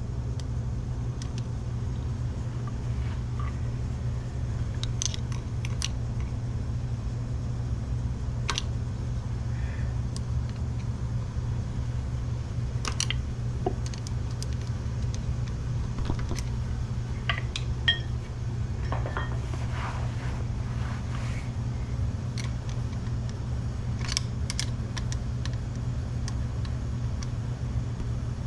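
Scattered light metallic clicks and taps of a screwdriver and hammer working the retaining clip off a drive chain's master link, over a steady low hum.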